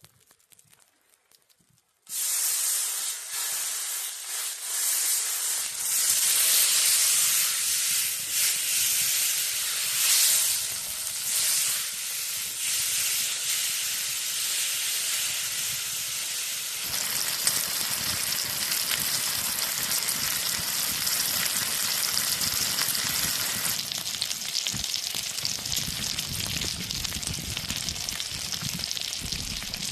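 Food sizzling hard in hot oil in a pan over an open fire. The sizzle starts suddenly about two seconds in and runs on, growing denser with a deeper rumble about halfway through.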